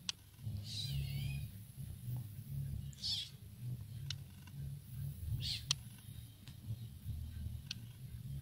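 Kitten giving three short, high-pitched mews during rough play-fighting with another kitten, with a few faint clicks between them over a low rumble.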